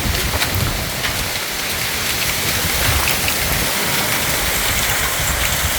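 Hailstorm: heavy rain and hailstones pelting down, a dense steady hiss scattered with many sharp ticks of hail striking hard surfaces, with a gusty low rumble of wind buffeting the microphone.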